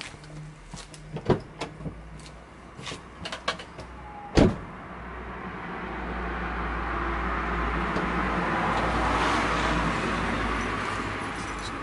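Small clicks and knocks around a parked car, with one loud car-door thud about four seconds in. After it comes a low rumble that swells and then fades.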